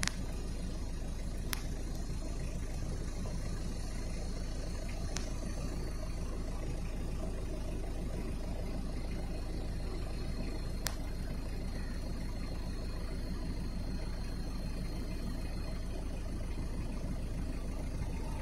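Steady low wind rumble buffeting the microphone on an open sea cliff, with a few brief faint clicks.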